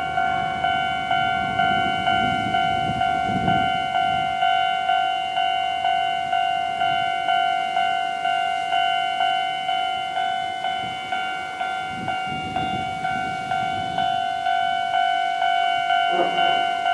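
Japanese railway level-crossing alarm of the older type, ringing a steady repeated ding about twice a second, each stroke fading before the next.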